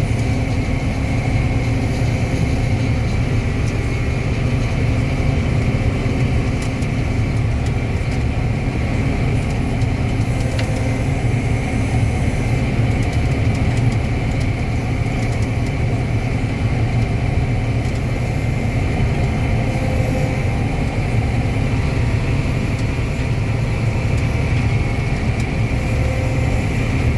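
Combine harvester running steadily while harvesting corn, heard from inside the cab: a constant low machine drone with a faint steady high whine over it.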